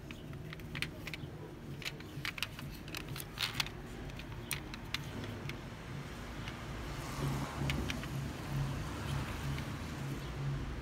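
Handling noise from a die-cast metal toy Lamborghini Aventador: a run of small sharp clicks and taps as its scissor doors are flipped open, then softer rubbing as it is turned in the hand, over a low steady hum.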